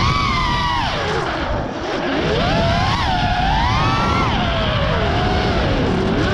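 Brushless motors and propellers of an FPV freestyle quadcopter whining, the pitch swooping up and down with the throttle: a sharp rise at the start, a fall and brief dip under two seconds in, another climb peaking about four seconds in, then a low dip near the end before it rises again.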